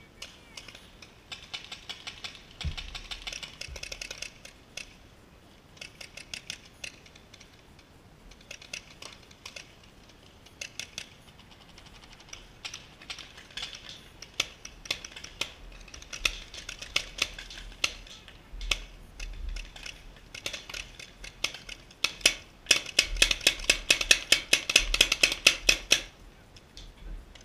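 Paintball markers firing in rapid strings of pops, on and off, with the densest and loudest volley near the end.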